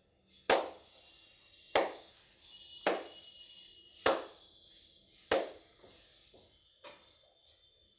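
Percussive head-massage strokes: the masseur's hands strike the client's head five times, sharp and evenly spaced about a second and a quarter apart, then give a few lighter, quicker taps near the end.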